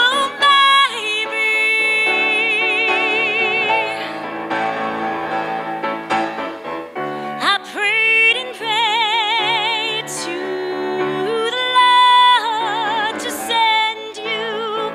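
A woman singing a slow song with grand piano accompaniment, her held notes sung with a wide vibrato.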